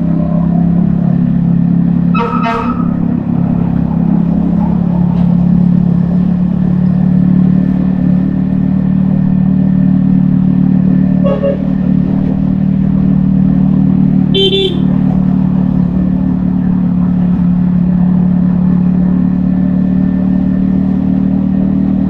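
Yamaha XSR155's 155 cc single-cylinder engine running steadily at cruising speed, heard from the rider's helmet. Vehicle horns toot briefly three times: about two seconds in, a fainter one around the middle, and a louder one a few seconds later.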